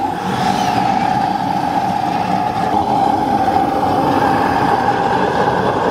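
Steady, loud rushing noise with a constant mid-pitched tone from a plank-steaming rig: a wood fire under a water tank making steam that is piped into a steam box.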